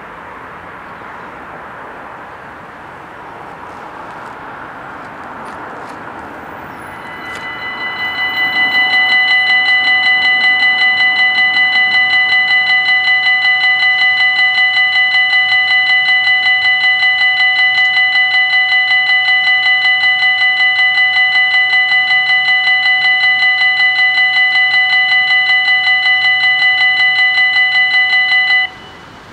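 Belgian level-crossing warning bells ringing: an electronic, rapidly pulsing ding that starts about seven seconds in as the red lights begin flashing and swells to full volume. It cuts off suddenly near the end, once the barriers are down.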